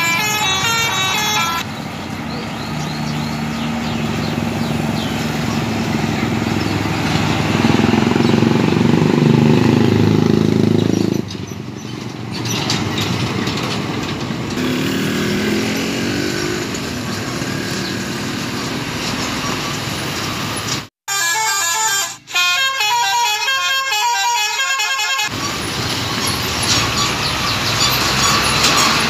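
Road traffic: heavy diesel trucks and motorcycles passing with engines running. A musical multi-note horn tune plays and stops about a second and a half in, and a short stretch of stepped melodic notes cuts in abruptly for about four seconds near two-thirds of the way through.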